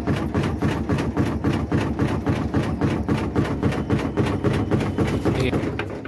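Semi-automatic washing machine's spin drum spinning with clothes in it and knocking against the machine's body in a loud, rapid rattle like a generator. The sign of wrong use of the spin cycle, which can also point to a gearbox problem. The rattle falls away at the end.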